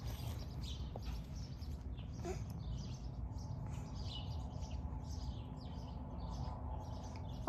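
Faint, scattered bird chirps over a steady low outdoor rumble.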